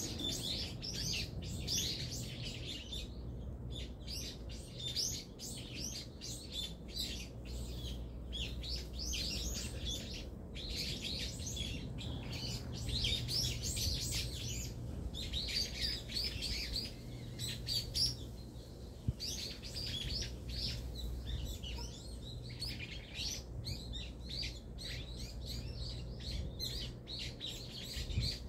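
Small songbirds chirping and twittering throughout, many short high calls overlapping one another, over a low steady hum.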